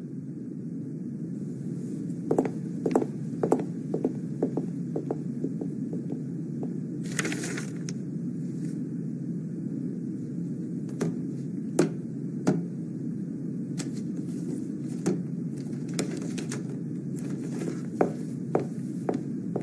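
Office room tone: a steady low hum with scattered light clicks and taps throughout, and a brief rustle about seven seconds in.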